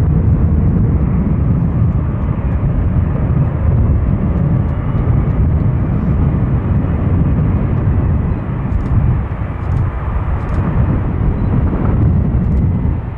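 Airbus A330-200's twin Rolls-Royce Trent 700 turbofans at high thrust on the takeoff roll: a loud, steady jet roar with a deep rumble and a faint whine above it.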